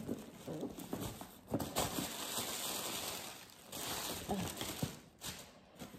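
Tissue paper rustling and crinkling as it is handled and pulled aside, with a few light taps and knocks mixed in; the rustling eases off near the end.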